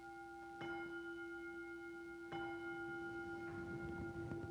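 A small altar bell struck twice, about a second and a half apart, each stroke ringing on in a long, clear, steady tone over the ring of the one before. It is rung during the communion rite of the Eucharist.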